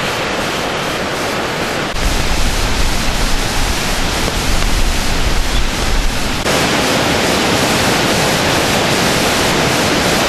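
Muddy river in flood, swollen by days of heavy rain, rushing and pouring as a torrent: a loud, steady roar of water. About two seconds in it gets louder with a deep rumble, and it shifts again a little after six seconds.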